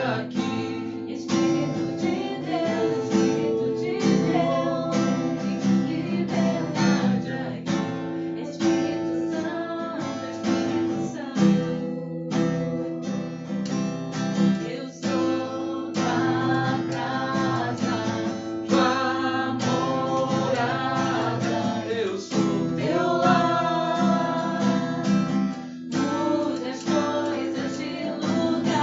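Worship song: strummed acoustic guitar accompanying singing.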